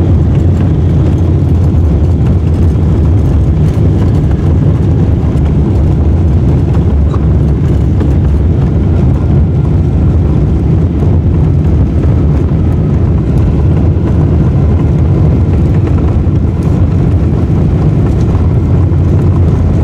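Cabin noise of a Boeing 747-8 rolling out on the runway just after touchdown, ground spoilers raised and flaps down: a loud, steady, low rumble of the airframe, engines and wheels.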